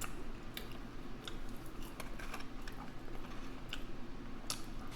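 Scattered soft clicks at irregular intervals, about seven in five seconds, over a low steady hum.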